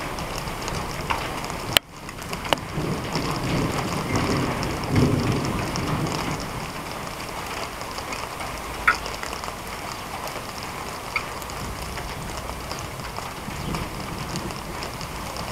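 Steady rain with a few sharp drop-like ticks, and a low rumble of distant thunder swelling and fading about four to six seconds in.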